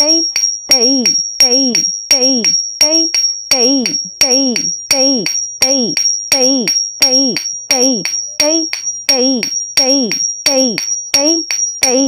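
Rhythm accompaniment for Bharatanatyam practice: sharp beats about two a second, each with a short called syllable that falls in pitch. A steady high whine runs underneath.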